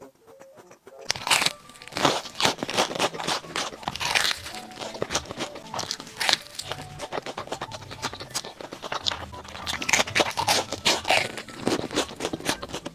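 Close-up crunching as a crispy fried corn dog is bitten into and chewed, with dense, uneven crackles starting about a second in and going on throughout, over background music.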